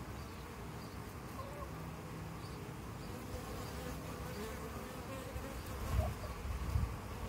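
Honeybees buzzing at the entrance of their nest, many flying in and out at once, making a steady hum that swells louder about six seconds in.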